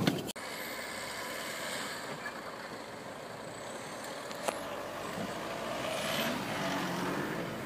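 A Mitsubishi pickup truck's engine runs as its chained tyres churn through deep snow. The engine note swells and rises near the end.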